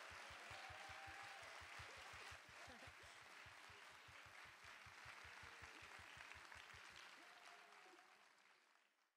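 Near silence: faint hiss of distant audience applause with rapid soft low thuds, about six a second, fading out about a second before the end.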